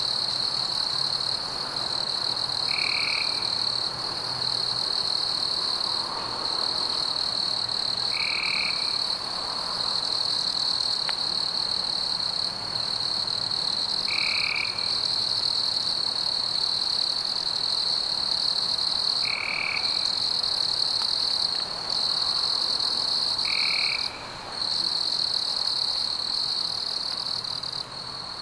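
A steady high-pitched chorus of calling frogs. A short, separate call stands out about every five or six seconds.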